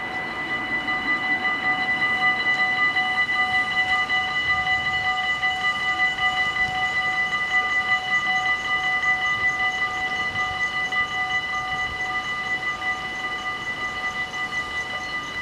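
Electronic warning bells of a Dutch automatic half-barrier level crossing ringing together in a steady, continuous ring while the barriers come down, warning that a train is approaching.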